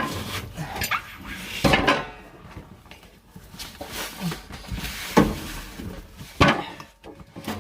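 Knocks, clunks and scraping of a new well pressure tank and its pex piping being worked into place by hand, with several sharp knocks among the rustling.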